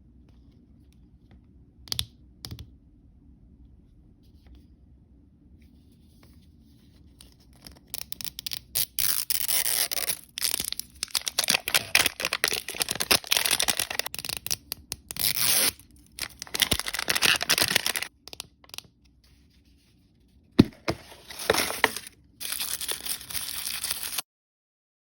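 Blind-bag packaging being torn open and crinkled by hand: a couple of small clicks, then from about eight seconds in dense bursts of ripping and rustling, with one sharp snap near the end. The sound cuts off suddenly just before the end.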